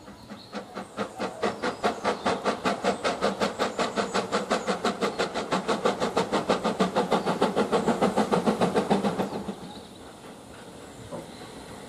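Steam exhaust beats of LNER Q6 0-8-0 locomotive No. 63395, a two-cylinder engine working under steam: a quick, even chuffing rhythm that grows louder and then stops abruptly about nine and a half seconds in as steam is shut off.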